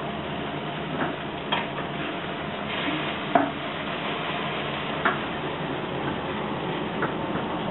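Olive oil sizzling in a hot frying pan as seared osso buco pieces are lifted out with tongs onto a metal baking tray, with a few sharp clicks of the tongs and meat against the metal.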